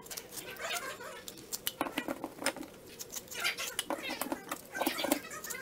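Irregular clicks, crinkles and rustling from hands handling small drywall repair materials at a hole in the wall, with a few short squeaky sounds mixed in.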